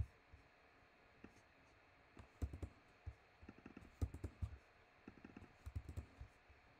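Computer keyboard typing: short bursts of keystroke clicks separated by pauses.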